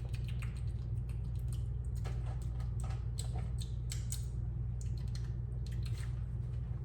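Steady low hum with scattered soft clicks and ticks coming at irregular intervals.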